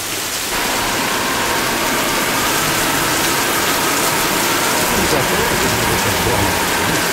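Heavy hurricane rain pouring down in a steady hiss, growing louder about half a second in.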